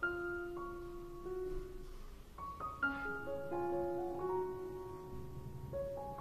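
Background piano music with a slow melody of held notes.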